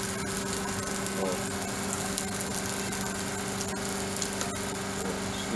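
Oil sizzling steadily on a hot iron griddle as seafood fries, with a steady low hum underneath and a few faint ticks.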